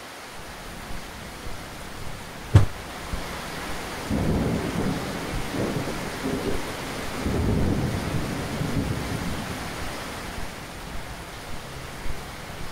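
Thunder over steady rain: a sharp thunderclap about two and a half seconds in, followed by a long rolling rumble.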